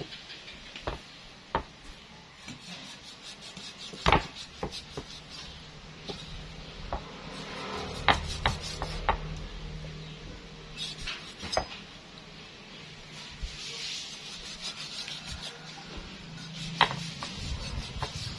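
A steel cleaver cutting and chopping through a half pig on a wooden cutting board: scraping and slicing sounds broken by irregular sharp knocks of the blade hitting the board, the loudest about four seconds in, a quick run around eight to nine seconds and another near the end.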